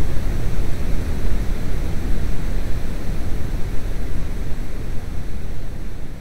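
Steady, loud rushing noise with a deep rumble and no clear tones or rhythm, easing off slightly near the end.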